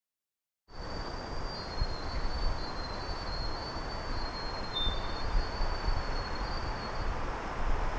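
Outdoor ambience that cuts in suddenly just under a second in: a steady low rumble and hiss with irregular low thumps, and faint thin high tones wavering above it for most of the stretch.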